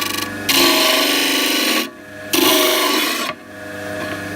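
A piece of maple pressed against the spinning disc of an Erbauer 305mm disc sander: a short touch at the start, then two sanding passes of about a second each, over a steady machine hum.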